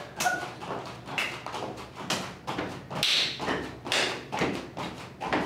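Feet of two people doing jumping jacks landing on a wooden floor, a steady rhythm of thuds and taps a little over two a second.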